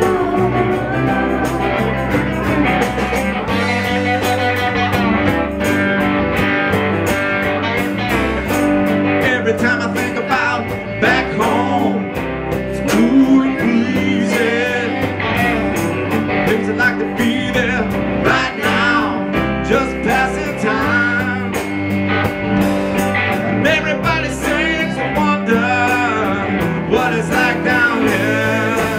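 Live rock band playing, with electric guitars, keyboard and sung vocals over a steady beat.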